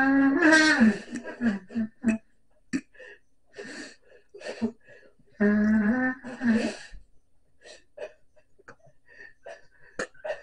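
Pocket trumpet blown by an unpractised player: a held note at the start that sags in pitch, then short breathy sputters and squeaks, a second held note about a second long around the middle, then more scattered short sputters.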